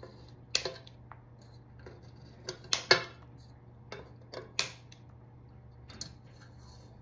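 Scissors snipping through the ends of plastic zip ties: short, sharp snips about a second apart, with three in quick succession about two and a half to three seconds in.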